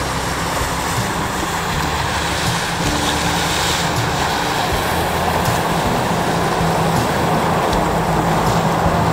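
A motorboat running past close by: its engine and wash make a steady rushing noise that grows a little louder in the second half, over a low steady hum.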